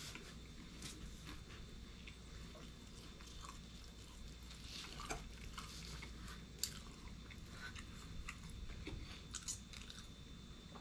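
Faint close-up chewing of thick, crispy Detroit-style pizza, with small crunches and mouth clicks scattered throughout.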